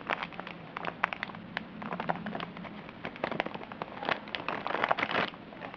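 Dense, irregular crackling and clicking of things being handled, like packaging or plastic rustled close by. It cuts off abruptly near the end.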